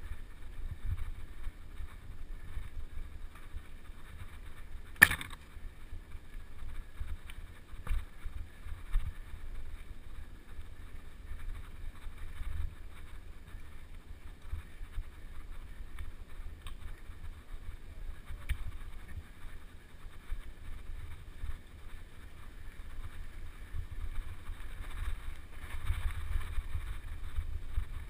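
Mountain bike rolling fast over a dirt singletrack, recorded by a camera on the moving bike or rider: a steady rumble of wind on the microphone and the bike jolting over the trail. A single sharp knock about five seconds in.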